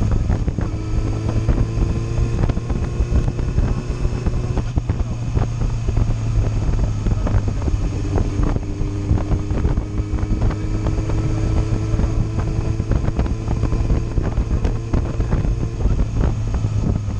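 Sport motorcycle engine running at low revs while riding, its note rising slowly twice, with wind buffeting the microphone.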